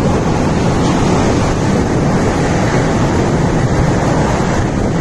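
Cyclone-force wind rushing loudly and steadily, buffeting the microphone.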